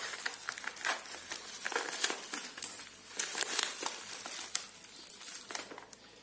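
Clear plastic packing wrap and tape around a parcel crinkling and crackling in irregular bursts as hands cut into it with scissors and pull it apart, thinning out near the end.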